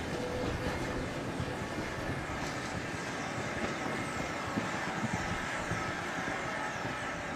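Electric tramcar of an Isle of Man electric railway running along the track: a steady rumble of wheels on rail with a faint high whine.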